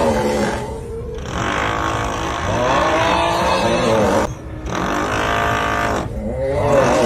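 The 'uuuugghhh' snoring meme sound, a long drawn-out groaning vocal, repeated over and over with short breaks, over a steady drilling noise.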